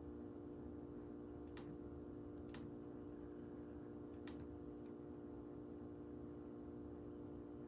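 Quiet room tone: a steady low hum made of several fixed tones, with three faint clicks spaced irregularly in the first half.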